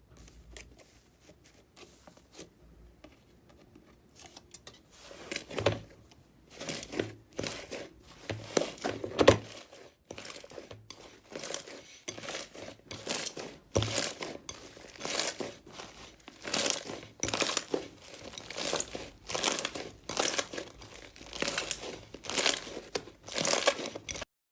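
Crunchy slime being squeezed and pressed by hand, crackling and crinkling in repeated bursts. It is faint for the first few seconds, then comes about once a second from about five seconds in.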